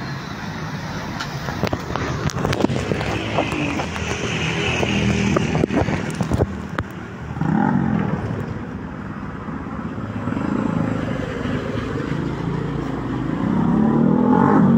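Road traffic on a rain-wet street: car engines running and vehicles driving past, their engine pitch bending as they go by about halfway through and again near the end. A few sharp clicks come in the first half.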